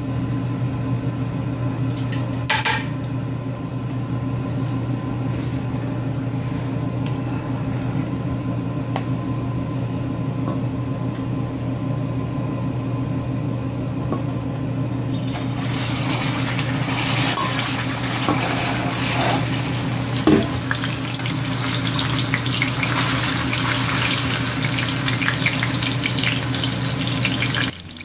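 A steady low hum runs throughout, with a few light clinks in the first few seconds. About halfway through, a dry-rubbed moose chuck roast is laid into a stainless skillet of hot canola oil and sizzles steadily as it sears; hum and sizzle cut off together just before the end.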